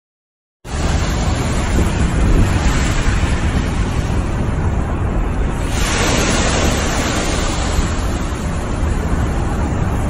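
Small waves washing onto a gravel shore, with wind rumbling on the microphone. It cuts in sharply about half a second in, after silence.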